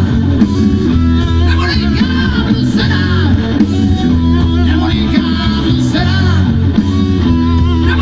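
Live blues band playing: electric guitar over bass and drums, with harmonica played into the vocal mic, its notes bending up and down.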